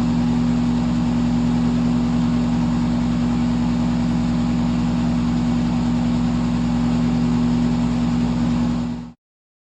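Electric fan running steadily: an even rush of air over a constant motor hum, ending abruptly about nine seconds in.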